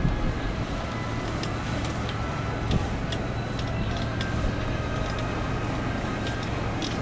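Steady low engine hum under a rumbling background noise, with faint scattered high clicks.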